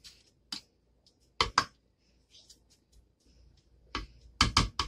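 Red silicone spatula patting buttered graham-cracker crumbs down into a glass baking dish to form a crumb base. It makes a scatter of short, sharp taps: one about half a second in, two close together around a second and a half in, and a quick run of four near the end.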